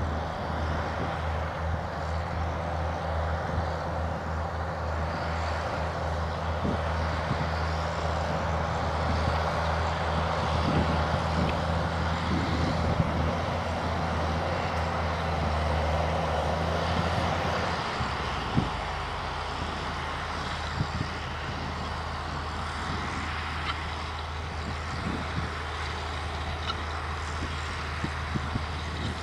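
John Deere 7920 tractor's six-cylinder diesel engine running steadily under load as it pulls a disc cultivator through soil, with a few scattered clicks. About two-thirds of the way through, the engine note changes and becomes slightly quieter.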